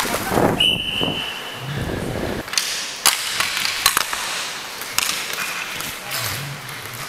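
Inline roller hockey play on an indoor rink floor: skate wheels rolling and sharp clacks of sticks and puck, several knocks spread through. A brief high steady tone sounds about half a second in.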